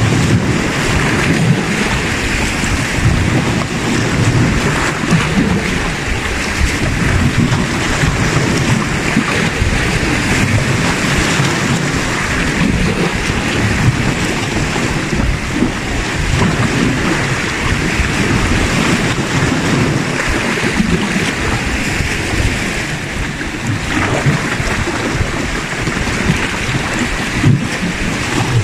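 Sea waves washing against shoreline rocks in a steady wash, with wind buffeting the microphone in an uneven low rumble.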